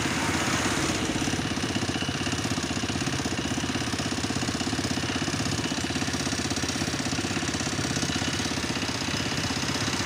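Small motorcycle engine running steadily at low speed, close to the microphone, with a fast even pulsing.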